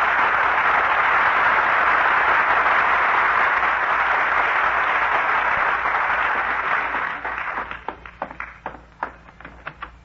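Studio audience applauding: a dense, steady wash of clapping that thins out about seven seconds in to scattered single claps.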